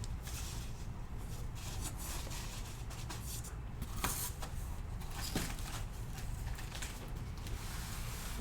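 Steady low hum of room noise with a few light clicks and rustles from handling, the clearest about four seconds in and again a second and a half later.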